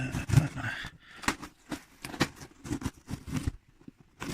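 A knife cutting and scraping through parcel tape and cardboard in short, irregular scratches and clicks, with a brief pause near the end. The blade is blunt enough that its owner thinks it needs replacing.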